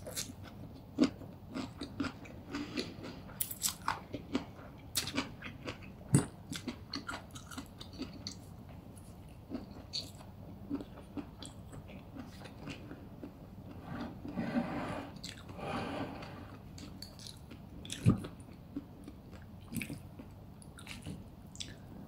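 Close-up mouth sounds of eating crispy glass-noodle funchoza with chicken: steady crunching and chewing with many small wet clicks. Two louder sharp knocks stand out, one about six seconds in and one near the end.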